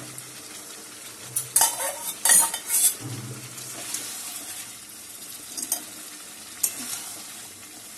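Fried prawns going into a hot metal kadai of potatoes in masala and being stir-fried with a spatula: loud clattering and scraping between about one and a half and three seconds in, then a steady sizzle with a few light scrapes of the spatula against the pan.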